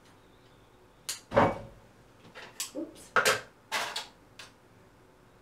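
A run of clacks and knocks from hairdressing tools and clips being handled on a tabletop: a loud knock about a second and a half in, then several smaller clacks and a second loud one just past three seconds, stopping a little after four seconds.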